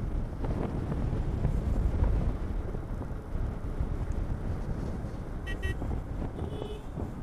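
Wind buffeting the microphone over the low rumble of a Hero XPulse motorcycle and its tyres while riding. A short horn toot sounds about five and a half seconds in, with another brief high tone just after.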